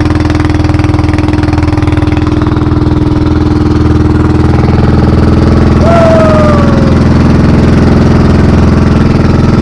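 Small engine of an outrigger fishing boat running steadily under way, a loud, even drone. A short falling tone sounds once about six seconds in.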